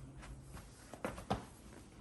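Two light clicks as small brake parts and bolts are handled, one about a second in and another a moment later, over faint room tone.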